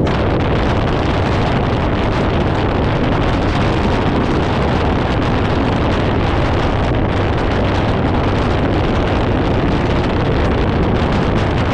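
Loud, steady wind rushing over the microphone, over a low rumble.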